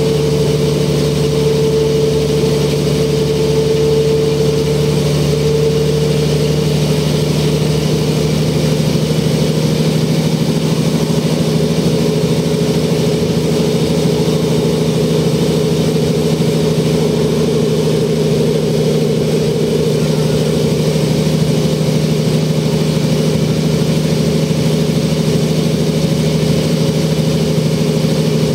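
Mercedes OM447h six-cylinder diesel and ZF 5HP-500 automatic gearbox of a 1994 Mercedes O405N city bus, heard from inside the passenger cabin while the bus drives at steady speed. It is a continuous, even drone with two steady held tones, one low and one higher.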